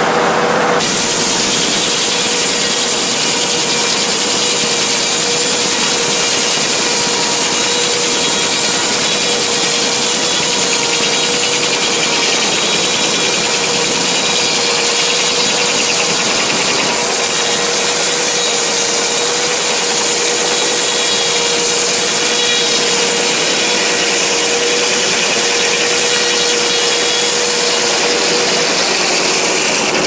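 Frick 00 circular sawmill blade cutting through a southern yellow pine log: a loud, steady rush of sawing with a constant tone running through it, over the running power unit that drives the mill.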